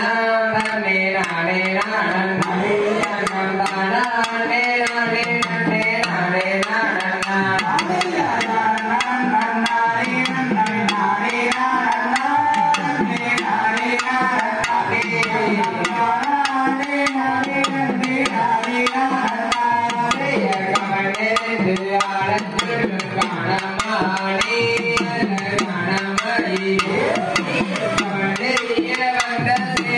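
Folk music accompanying a Kummi dance: a drum beaten with a stick in a steady, quick rhythm, with a voice singing a melody over it.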